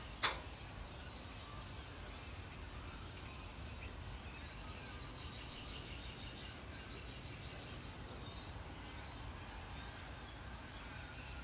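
A single sharp click a moment in, then faint steady background noise with a few soft, high bird chirps.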